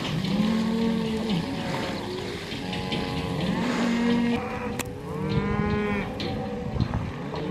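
Herd of beef cattle on a cattle drive, cows and calves mooing over one another, the calls overlapping almost without pause.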